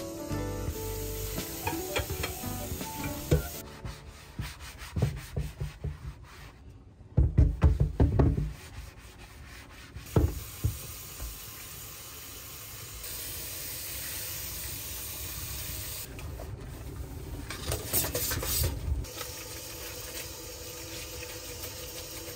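Irregular scraping and rubbing with scattered knocks: a loud cluster of knocks about a third of the way in, a single sharp knock soon after, and another cluster later on.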